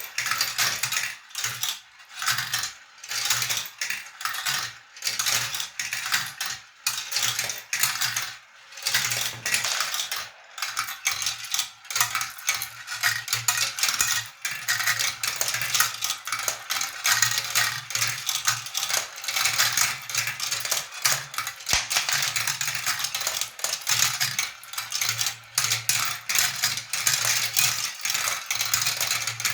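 Glass marbles rolling and clicking along a small marble-run track: a continuous rattle of rapid clicks over a rolling rush, with a low steady hum joining about nine seconds in.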